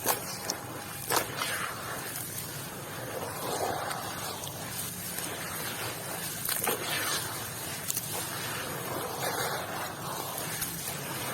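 Wet sand and red dirt being mashed and crumbled in water, a soft slushy sound that swells every few seconds, with a few sharp clicks of small stones.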